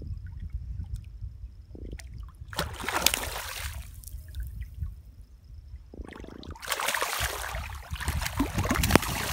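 A hooked croaker splashing and thrashing at the water's surface as it is reeled in to the bank, in two bouts, the second longer, over a steady low wind rumble on the microphone.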